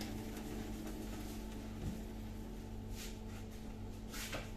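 Steady low electrical hum from kitchen machinery, with a couple of faint clicks about three and four seconds in.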